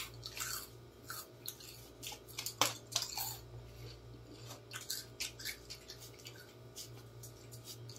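Scattered crisp crunches and clicks of a crunchy snack being eaten, busiest a little under three seconds in, over a steady low hum.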